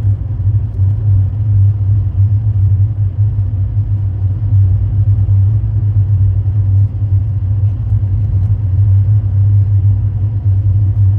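Car driving along: a steady low rumble of engine and road noise that holds even throughout.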